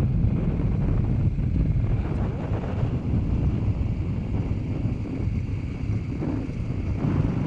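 Wind buffeting the microphone on a moving dirt bike, with the KTM 500's single-cylinder engine running underneath as a steady low rumble.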